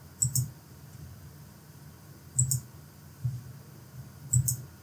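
Computer mouse clicking three times, about two seconds apart, each click a quick pair of ticks.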